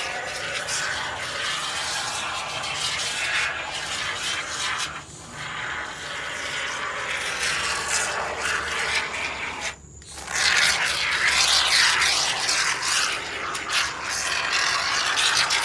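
Aerosol can of Great Stuff expanding foam sealant spraying with a continuous hissing sputter, let off briefly about 5 and 10 seconds in.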